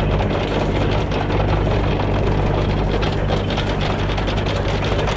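Backhoe engine running steadily, heard close up from the machine.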